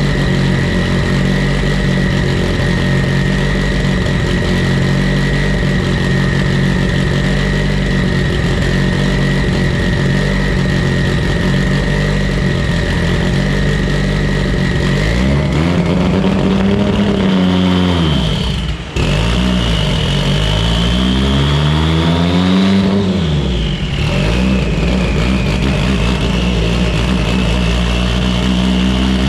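Mitsubishi Evo 8's turbocharged 2.0-litre four-cylinder running on a dyno during a tuning run on a deliberately rich fuel target. It holds a steady speed with a steady high whine for about fifteen seconds, then revs climb, cut out suddenly for an instant just before the twentieth second, climb again and drop back shortly after.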